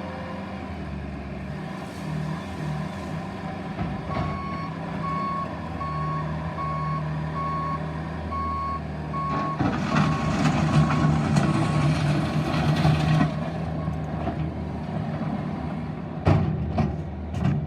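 Bobcat T650 track loader running, its diesel engine droning steadily while the backup alarm beeps about once every three-quarters of a second for several seconds. From about halfway in, the engine gets louder and busier for a few seconds, and a few sharp clanks come near the end.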